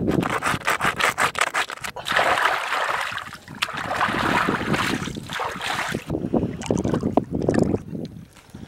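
A fish being scraped hard against a rough rock, a fast run of rasping strokes, then water splashing for a few seconds as it is rinsed. Near the end come irregular knocks and scuffs of loose stones being handled.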